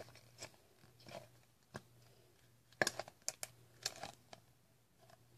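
Scattered clicks and crackles from a plastic bottle being handled and turned close to the microphone, with a cluster of louder ones about three to four seconds in.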